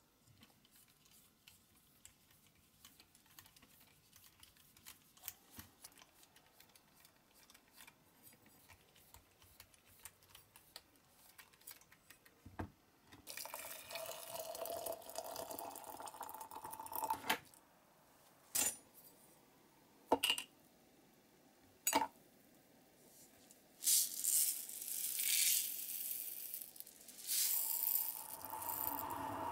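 Faint scraping ticks of a small drill working the rivet on a diecast toy car's base, then water poured into a glass jar about halfway through, a few sharp clinks, and white granules poured into the water near the end.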